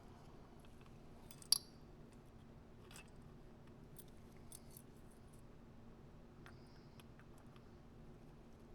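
Small clicks and taps of carburetor parts being handled while the jet needle is worked down into its jet, with one sharp click about a second and a half in and fainter ticks after, over a faint steady hum.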